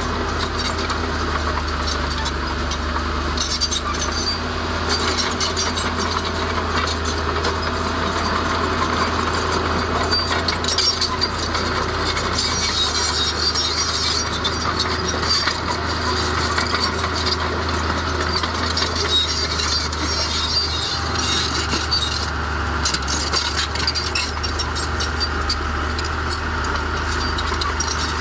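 Heavy diesel earthmoving machinery running steadily under a continuous clatter and rattle of metal and stone.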